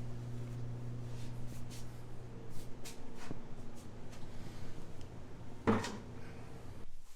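Scattered knocks and clatter of objects being handled in a small room, with one louder thump near the end. A steady low hum runs underneath and cuts off just before the end.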